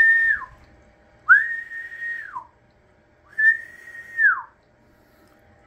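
A man whistling a series of single-pitch notes, each held about a second and sliding down at the end, roughly every two seconds. The whistle serves as a test tone into the microphone to drive a Collins 30L-1 linear amplifier on single sideband while its output power is read.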